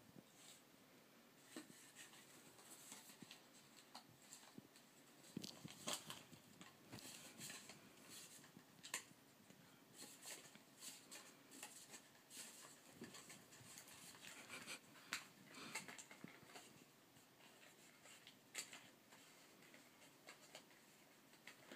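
Faint, irregular scratching and scuffing of a cat's paws and claws on carpet and yarn as it rolls and bats at a ball of yarn.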